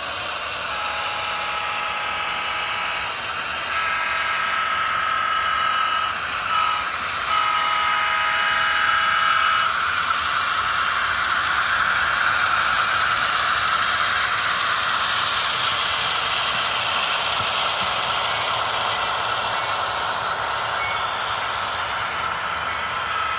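A train horn sounding a held chord, broken twice by short gaps, then stopping about ten seconds in, leaving the steady rushing noise of a train running past.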